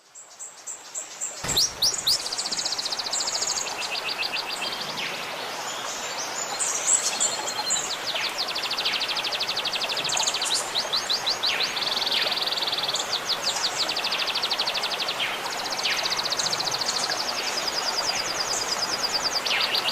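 Songbird singing phrase after phrase of rapid trills, fast runs of repeated high notes broken by short falling calls, over a steady trickle of running water. The sound fades in during the first second or so.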